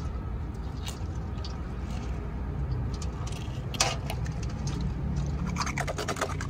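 Wet handling sounds and small clicks of snakehead fish skin being pulled off by hand, with one sharp knock about four seconds in and a quick run of clicks near the end, over a steady low rumble.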